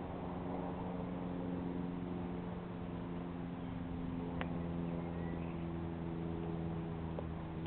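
A steady engine drone, even in pitch, with one short click about four seconds in.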